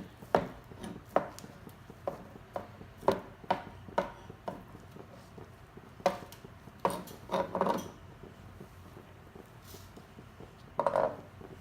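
A utensil knocking and scraping against a pan as shredded chicken is stirred in its sauce: a run of irregular sharp knocks, with a longer scrape about seven seconds in and another near the end.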